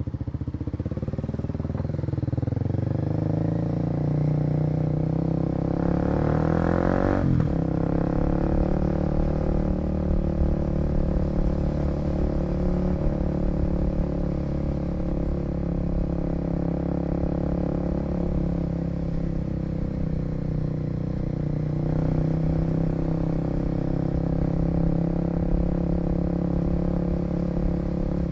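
Kawasaki KLX250's single-cylinder four-stroke engine pulling away and accelerating. Its pitch climbs and then drops at each gear change, most sharply about seven seconds in. After that it runs steadily at cruising speed.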